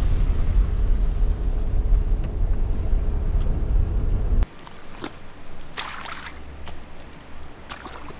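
Low, steady rumble of a car driving on a wet, mud-strewn road, heard from inside the cabin. It cuts off suddenly about halfway through. After that, a few soft squelches of rubber boots stepping in deep mud.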